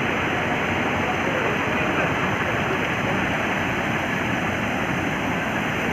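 Fast-flowing muddy floodwater rushing across a road, a steady, unbroken rush of water.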